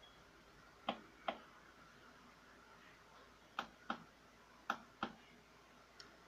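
Buttons clicking as they are pressed: three pairs of sharp clicks, each pair a fraction of a second apart, and a single click near the end.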